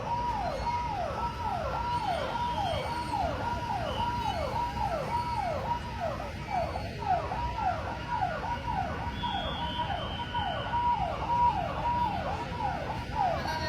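Emergency vehicle siren wailing in a fast repeating pattern: each cycle holds a high note, then drops sharply, about two to three times a second, over steady background noise.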